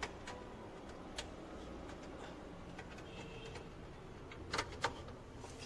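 Scattered plastic clicks and taps of cable plugs being handled and pushed into the back panel of a CCTV DVR, with two louder clicks close together about four and a half seconds in.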